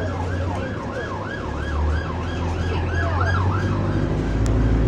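Police car siren on a fast yelp, its pitch sweeping up and down about three times a second, fading out a little over three seconds in. Heard from inside a bus, with the bus's engine droning low underneath and getting louder near the end.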